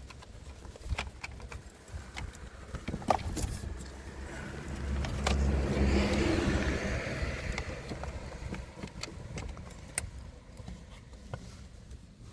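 Scattered clicks and light rattles of plastic dashboard trim and tools being handled as a panel is wiggled loose. In the middle a broad rushing noise with a low rumble swells for a few seconds and fades.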